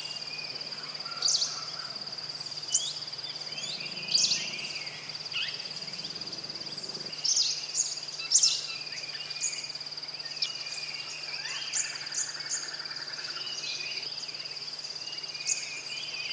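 Greenish warbler giving short, sharp, high-pitched notes at irregular intervals, the loudest about four and eight seconds in. Under the notes runs a steady high-pitched drone.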